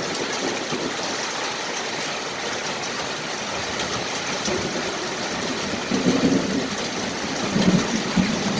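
Heavy rain from a hailstorm falling steadily, a dense hiss scattered with sharp taps of drops or hailstones striking. Two brief, louder low swells come about six and seven and a half seconds in.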